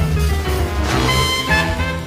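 Swing-style jazz music, with instruments holding stacked notes over a steady low beat.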